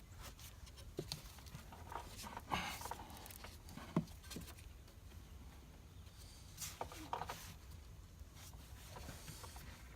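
Faint, scattered light clicks and rustles of hands handling plastic trim and push tabs around a vehicle's air filter housing, over a low steady hum.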